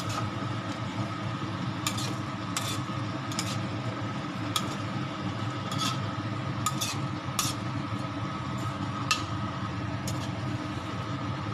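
A spatula stirring a thick meat-and-vegetable stew in a wok, with about a dozen irregular scrapes and clinks against the pan. A steady hum runs underneath.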